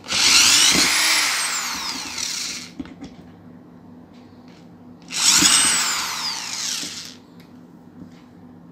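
iBELL IBL SD10-85/86 electric screwdriver whirring in reverse, backing a Phillips screw out of thin plywood. It runs twice, for about two to three seconds each, starting abruptly with a whine that rises and then falls away.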